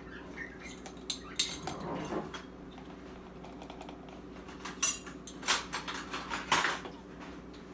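A spoon clinking and tapping against kitchen dishes: a handful of separate light knocks and scrapes, the loudest about five seconds in.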